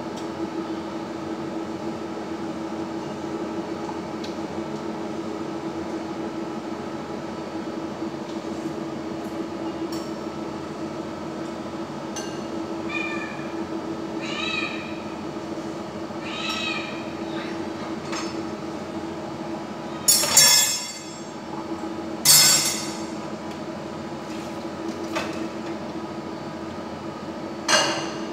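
Chopsticks and a metal spoon working beaten egg in a ceramic bowl over a steady low hum, with a few short high squeaks that rise and fall about halfway through. Two loud clinks follow, and near the end a glass lid clinks down onto the bowl.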